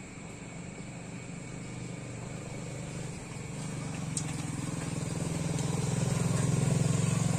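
A motor vehicle's engine on the road, growing steadily louder as it approaches and easing off just at the end.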